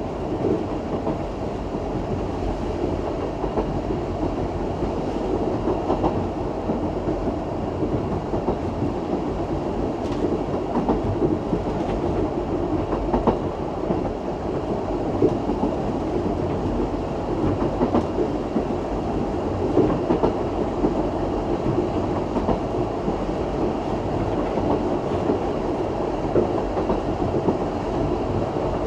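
Isle of Man Steam Railway train running along the narrow-gauge track: a steady rumble of the coaches on the rails, with occasional clicks from the wheels.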